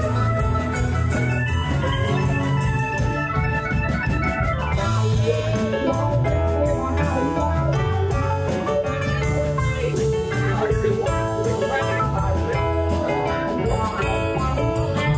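Live band playing an instrumental passage: drums, bass guitar and acoustic-electric guitar under a keyboard with an organ sound.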